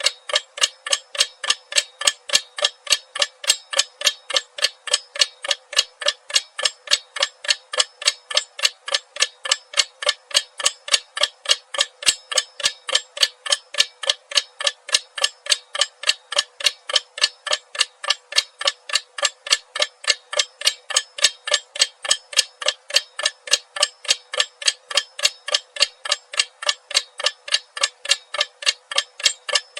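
Clock ticking in a quick, even, unbroken rhythm of sharp ticks.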